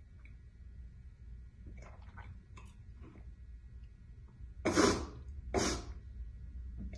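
A person gives two short coughs about a second apart, near the end, with a few faint clicks before them.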